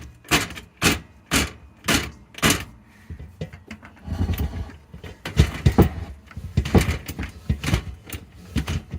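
A run of sharp clicks, then heavier knocks and clatter from about four seconds in: a hand-cranked drum drain snake and its metal cable being handled and fed into a sink drain pipe.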